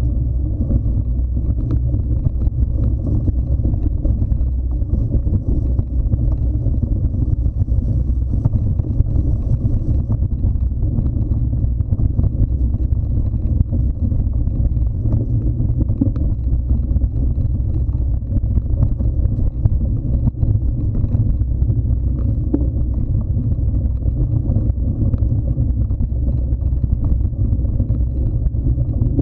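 Steady low rumble of wind buffeting and trail vibration on an action camera's microphone as it travels along a dirt trail at riding pace, with scattered faint clicks and rattles.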